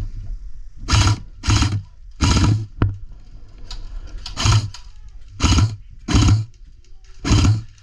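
Heavy breathing right on the microphone: seven loud, irregular breaths, with one sharp click about three seconds in.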